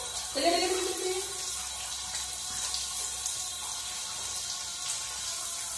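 Water spraying steadily over a dog's coat during a bath and splashing onto the floor, a continuous hiss. About half a second in, a brief rising voice-like sound.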